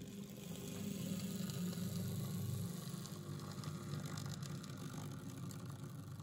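Small electric motor and gear train of a model locomotive built on an Arnold 1970s steam-loco chassis, whirring steadily as it runs along the track. It grows louder over the first second as the loco approaches.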